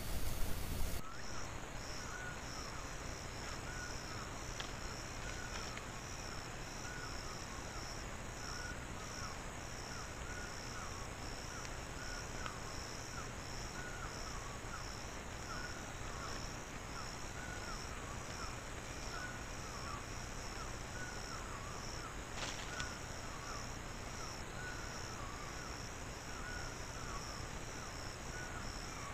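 Tropical forest ambience of insects calling: a fast, high, pulsing trill over a lower chirp repeated about once a second. One short knock sounds about 22 seconds in.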